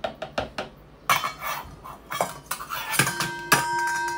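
Metal spoon clinking and scraping against the tahini jar and the blender jug while tahini is spooned into the jug: a run of sharp clinks, then scraping. A steady ringing tone comes in near the end.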